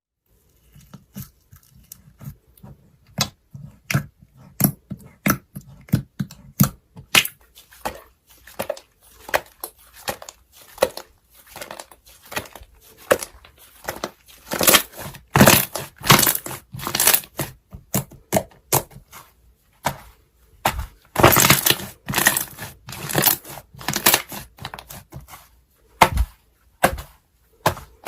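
Slime being squeezed and poked by hand, making irregular sharp pops and crackles. The pops come sparsely at first and crowd into dense crunchy stretches in the second half.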